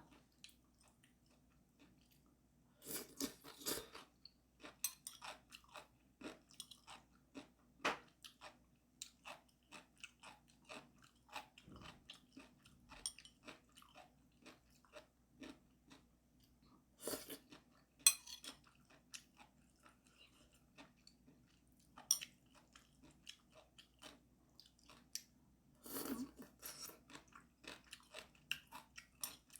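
A person chewing crunchy food close to the microphone: a steady run of small crunches and mouth clicks, with louder clusters of bites about three, seventeen and twenty-six seconds in.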